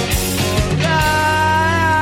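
Rock song with full band and drums; a long held note comes in about a second in and bends downward at its close.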